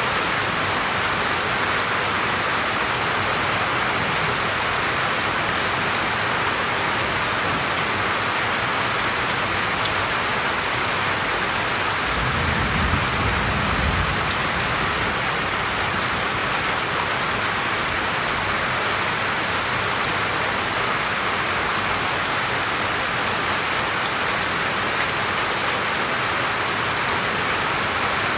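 Steady rain falling on a roof and on tree and banana leaves, heard from under the roof, with a brief low rumble about halfway through.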